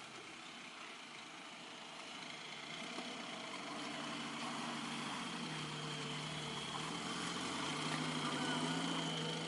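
Off-road 4x4 vehicle's engine growing steadily louder as it approaches, its pitch going up and down with the throttle.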